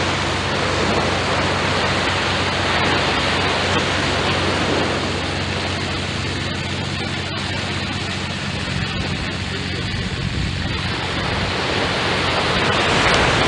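Steady rushing noise of wind and surf at a beach, with the engine of a piece of heavy construction equipment running at an even pitch underneath until about eleven seconds in.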